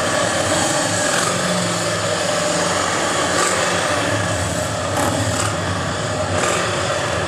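Steady engine noise from Harley-Davidson motorcycles running nearby.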